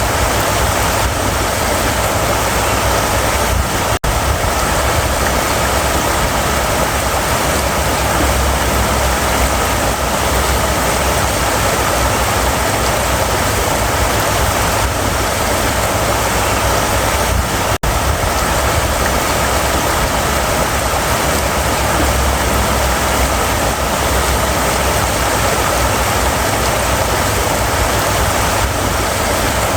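River water running over rocks: a steady rushing with a deep rumble underneath, cutting out for an instant twice.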